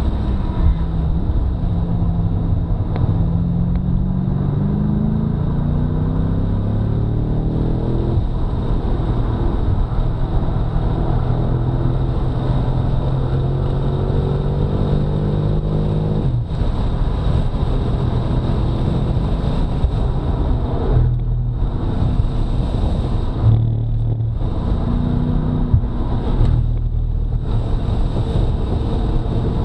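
2018 BMW F90 M5's twin-turbo V8 at full throttle on track, its note climbing through a gear with an upshift about eight seconds in, then climbing again. About halfway through it cuts off suddenly as the driver lifts, followed by several brief dips in the engine note, typical of braking and downshifting through corners.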